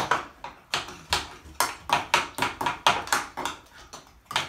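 Spoons clinking and tapping against bowls while eggs are rolled in whipped topping, a quick irregular run of small knocks, about three a second.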